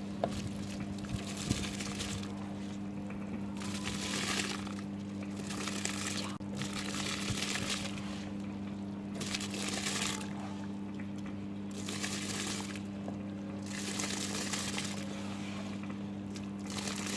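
Water sloshing and pouring in a cooking pot in repeated swishes a second or two apart, over a steady low hum.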